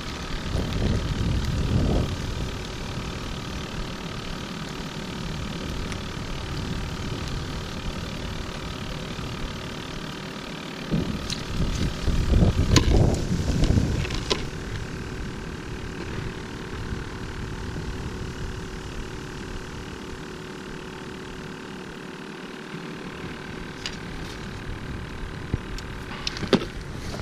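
Battery aerator of a minnow bucket humming steadily. Wind buffets the microphone in gusts, loudest near the start and again about halfway through, and a few sharp clicks and knocks of the bucket's lid and net being handled come about halfway through and near the end.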